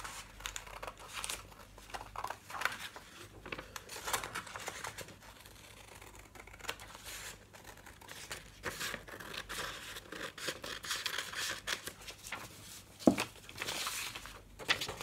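Scissors cutting through folded coloured paper in a series of short snips, with the paper rustling as it is handled. Near the end a knock, as the scissors are set down on the table, and louder rustling as the cut strip is pulled free.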